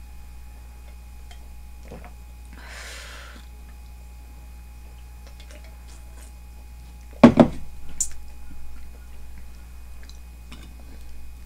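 Drinking from an aluminium beer can, then a sudden loud knock a little past halfway as the can is set down on the table, followed by faint clicks of chopsticks on dishes, over a steady low hum.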